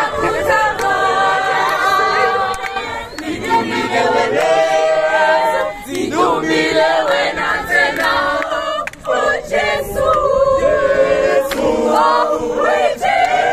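A church youth choir singing a cappella, many voices together in a lively song with no instruments.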